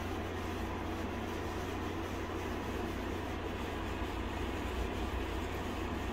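Steady low hum with even background noise, unchanging throughout and with no distinct events.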